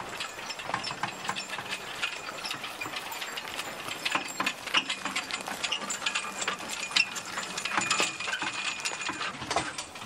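Horse-drawn carriage on the move, its wheels and wooden fittings rattling and clicking irregularly. The clatter grows busier and louder about halfway through.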